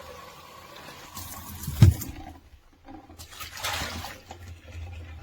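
Water running and splashing in a sink as a wet-dry vacuum's dirty-water tank is rinsed, with a sharp knock about two seconds in and another short splash of water a little later.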